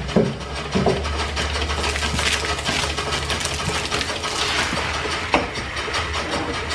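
Steam blowing from an exhaust pipe while a steam engine runs with a steady low hum and rapid even beat, with a few sharp knocks in the first second. Partway through, water from a hose splashes onto the ground.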